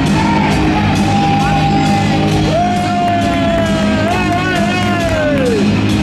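Rock music playing, with one long held high note that wavers about four seconds in and falls away near the end.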